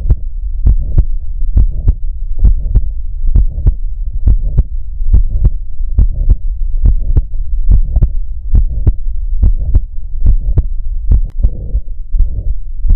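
Heart sounds recorded through a Stethophone smartphone stethoscope: a steady heartbeat of paired lub-dub sounds a little under once a second over a low hum. The recording is of a heart with a systolic murmur, a marker of cardiac pathology.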